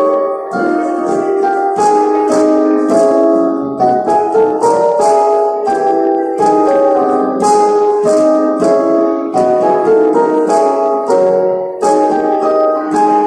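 Yamaha digital piano playing a piece in chords with a moving melody. A crisp high percussive accent falls on roughly every beat.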